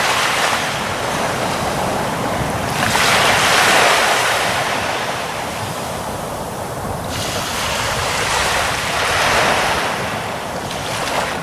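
Ocean waves breaking and washing onto the shore, a steady surf that swells louder about three seconds in and again about nine seconds in.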